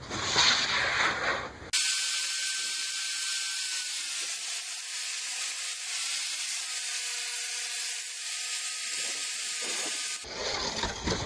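A battery-powered circular saw ripping through a plywood board: a steady cutting noise with a faint motor whine, lasting about eight seconds and stopping abruptly near the end. A short rustle of handling comes before and after it.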